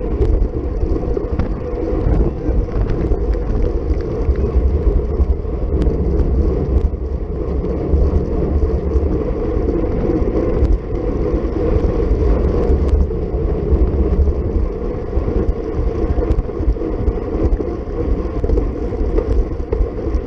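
Steady low wind buffeting on a bike-mounted action camera's microphone while riding a road bike at race speed, mixed with tyre and road noise.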